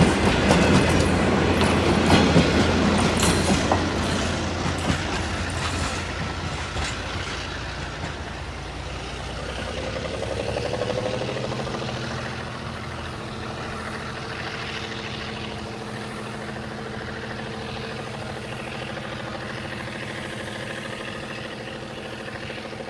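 A train rolling past with clicking wheels, loud at first and fading away over the first several seconds. Then comes a steady, quieter hum with several held tones, like an engine running, which holds to the end.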